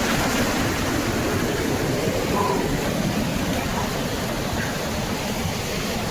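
Waterfall's falling water rushing steadily as an even, unbroken noise.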